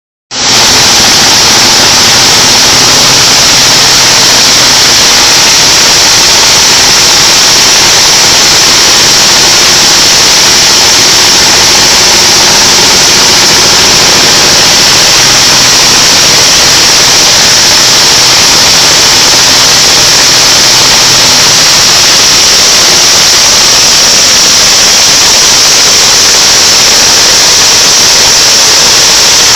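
Plastic-drying machine's high-pressure blower running steadily: a loud, even rushing hiss with a faint hum underneath.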